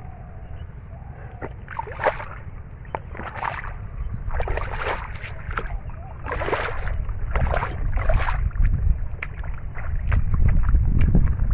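Bare feet squelching and splashing through soft, waterlogged pond mud: about half a dozen irregular wet sucks and splashes, over a steady low rumble that grows louder near the end.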